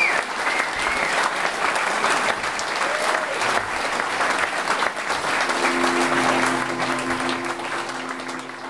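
Concert audience applauding, a dense even clapping with a high whistle near the start. From about halfway a low steady hum runs under the clapping, which thins out near the end.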